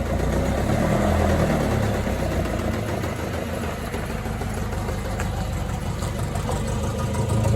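1979 Alfa Romeo Spider's twin-cam four-cylinder engine running steadily at low revs, as at idle.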